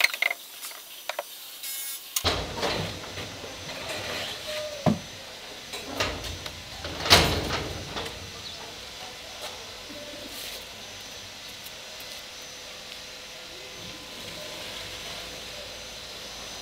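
Wooden bar cart's hinged lid and panels being opened and handled: a few wooden knocks and scrapes, the loudest a longer scrape-and-bang about seven seconds in.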